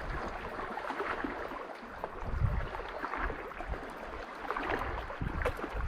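Seawater sloshing and lapping against shoreline rocks, an uneven rushing wash, with irregular low thumps on the microphone.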